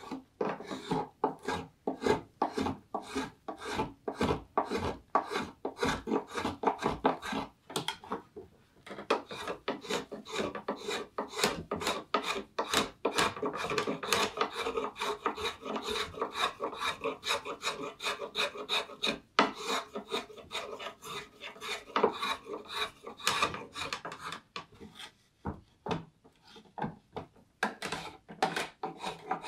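Wooden spokeshave taking quick, short shaving strokes across a green black walnut bowl, about two strokes a second. A longer run of steady scraping comes midway, and there is a brief pause near the end. The walnut is hard to cut.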